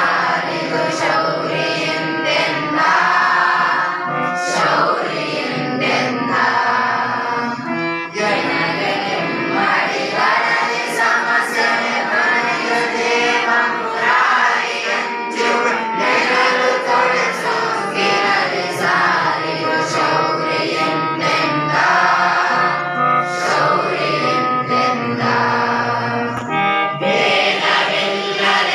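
A class of school students singing a Kannada poem together in chorus to a set tune.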